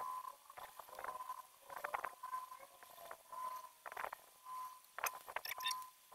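Fingers pulling apart dried smoked fish and picking out its bones on a plate: faint, irregular crackles and small snaps of the dry skin, flesh and bones.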